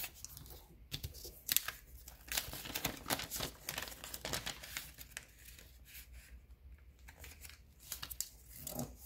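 A square sheet of origami paper being folded and creased by hand: irregular crinkles and rustles as the paper is bent and pressed flat.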